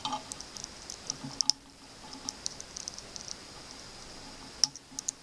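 Small irregular clicks and ticks of a screwdriver turning the screws of a plastic plug's cable grip and knocking against the plug.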